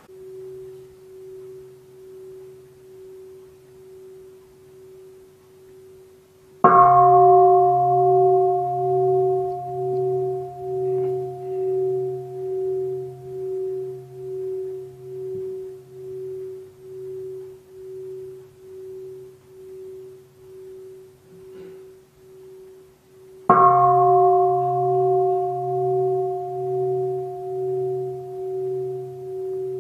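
Large Buddhist bowl bell (the bell of mindfulness) ringing. A softer tone hums at first, then the bell is struck fully twice, about seventeen seconds apart. Each stroke rings on for a long time with a slow, pulsing waver as it fades.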